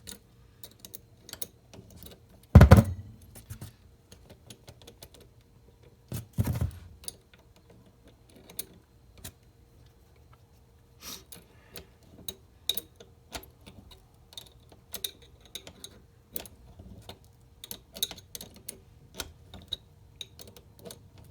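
Metal parts of a starter bendix drive clicking and clinking as they are handled and worked back into place, with two louder knocks, the loudest about two and a half seconds in and another about six seconds in. A faint steady low hum runs underneath.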